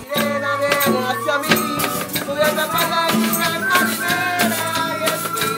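A song with a man singing, over maracas and other shakers keeping a steady rhythm.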